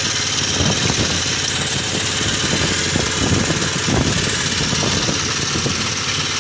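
Small engine running steadily at idle. Over it come irregular splashing and knocking as a scoop net heavy with squid is hauled through the water and handled, mostly in the first few seconds.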